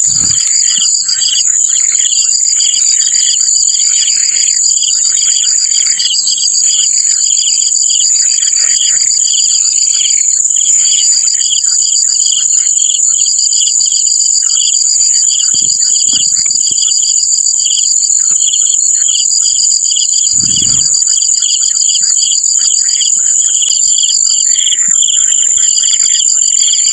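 Insects trilling without a break: a steady high-pitched drone with a fast, pulsing chirp layered beneath it. There is one short, low thump about twenty seconds in.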